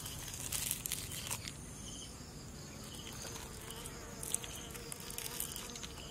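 An insect buzzing, with soft crackling and rustling in the first second or so as fingers pull apart the charred skin of a grilled fish on banana leaves.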